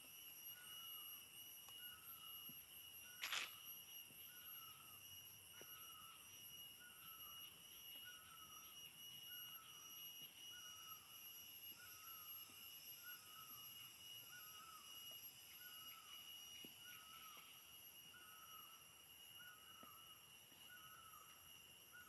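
Faint forest ambience: a steady high insect drone, with an animal's short call repeated evenly about every second. A single sharp click comes about three seconds in.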